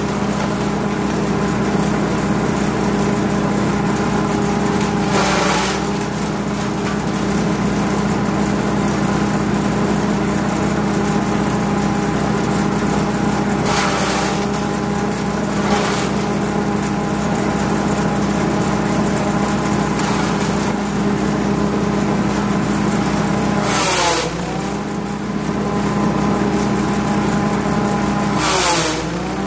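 Grass chopper driven by a 5.5 HP petrol engine, running steadily. About five short rushing bursts ride over the engine, and with the last two, near the end, the engine pitch dips briefly as if it takes on load.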